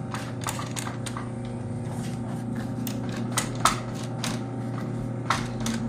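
Industrial post-bed sewing machine with its motor humming steadily while a shoe upper is stitched, with irregular sharp clicks and ticks from the machine and the work being handled.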